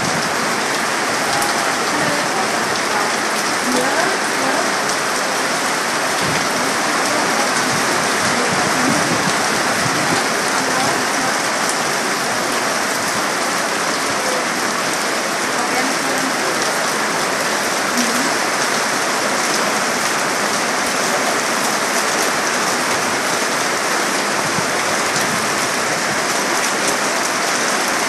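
Heavy rain falling steadily, a dense even hiss of drops hitting surfaces.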